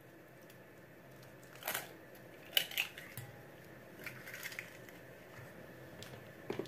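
Eggs being cracked for batter: a handful of sharp taps and small crackles of eggshell, spaced over several seconds.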